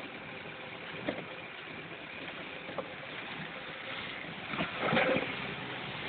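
Vehicle driving along a muddy, rutted dirt road, heard from inside the cab: a steady run of engine and tyre noise with a few knocks as it jolts over the ruts, the loudest about five seconds in.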